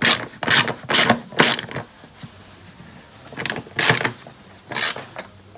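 Hand ratchet wrench being worked in short strokes to drive a bolt on a pit bike: a burst of clicking about twice a second, a pause of about two seconds, then three more strokes.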